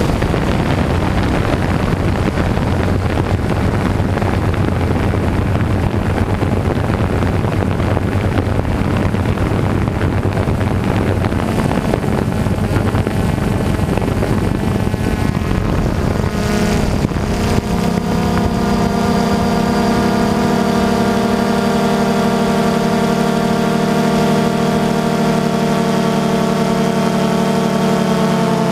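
An engine running steadily over a noisy rumble, likely with wind on the microphone. About two-thirds of the way in, a steady drone of several even tones comes in and holds.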